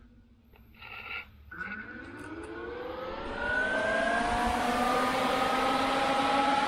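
Electric radiator cooling fan switched on and spinning up: its motor whine rises in pitch for a few seconds, then settles into a steady hum over the rush of air, drawing air in through the radiator.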